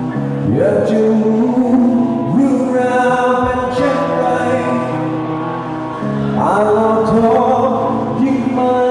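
Live rock band playing a Thai rock song at a sound check, with long held notes that slide up in pitch several times.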